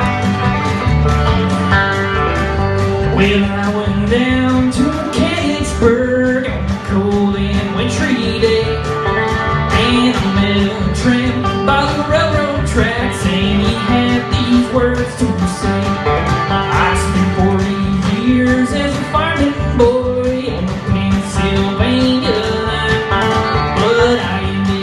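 Live country band playing a song with strummed guitars and a lead voice singing the melody.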